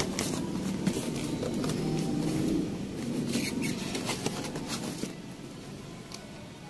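Cardboard shipping box being handled: its flaps are pulled open and rubbed, with a rough scraping rustle and a few sharp cardboard clicks. The sound drops off about five seconds in as a small boxed item is lifted out.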